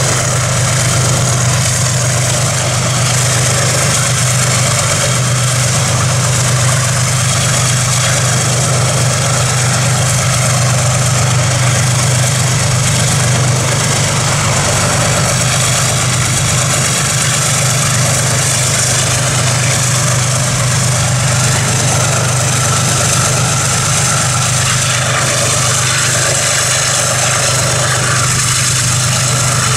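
Steady engine drone with an even rush of wind noise, heard from a motorcycle riding alongside diesel freight locomotives. The low hum holds one pitch, with no revving or pauses.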